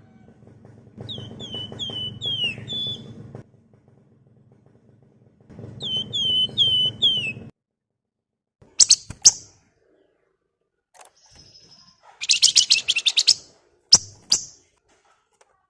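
Wergan Jawa (flamboyan) songbirds calling: two phrases of four or five clear down-slurred whistled notes, then sharp high chips and a rapid, dense chattering trill about twelve seconds in. A low hum runs under the whistled phrases.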